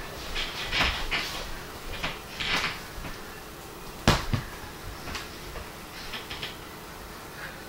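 Household handling noises at a kitchen counter: a few short clatters, then one sharp knock about four seconds in, like a cupboard door or an object set down hard, and a few light clicks after.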